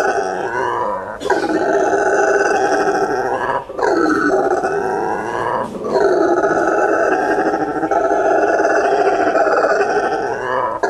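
Brown howler monkey giving its loud territorial roar: long raspy calls broken by three short pauses, after which the sound swells back up.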